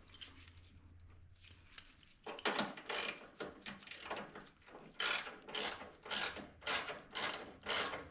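Hand ratchet wrench being worked in short back-and-forth strokes, its pawl clicking on each swing, tightening the buggy's front-end clamp bolts. It starts about two seconds in and settles into an even rhythm of roughly two strokes a second.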